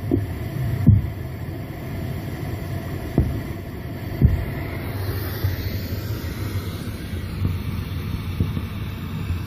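Steady low rumble with a few short dull thumps, about a second, three seconds and four seconds in, picked up at a borehole site; the recordists take it for the sound of underground tunnel-digging machinery.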